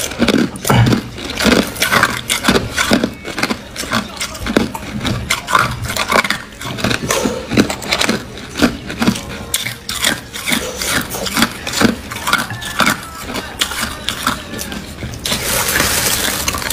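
Frosty white ice cubes being bitten and chewed close to the microphone: a fast, irregular run of sharp cracks and crunches, with a brief steady hiss near the end.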